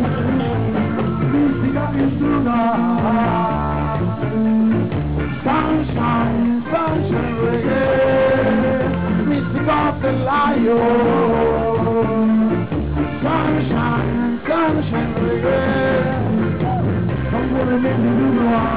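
Live band playing an upbeat reggae tune through the PA, with electric guitars, bass and percussion.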